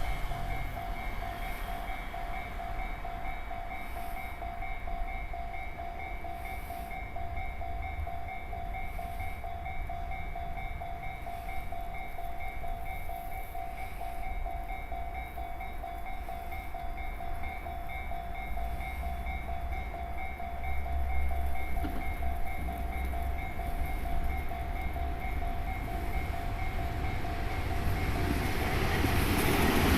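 Japanese level-crossing warning bell ringing in a rapid, steady repeating ding over a low rumble. Over the last few seconds a train approaches and its noise swells, covering the bell.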